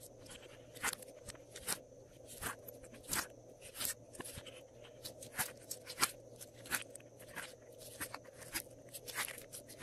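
Soft glossy slime being squeezed, pressed into and pulled from the cells of a silicone ice cube tray by hand: a run of short sticky clicks and pops, roughly one or two a second, over a faint steady hum.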